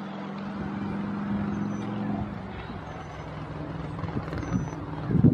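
A steady motor engine drone that fades out about two seconds in, with a few faint, short, high-pitched peeps now and then and louder knocks near the end.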